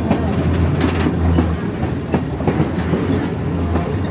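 Passenger train rolling along the track, heard from on board: a steady low rumble with scattered clicks of the wheels over the rails.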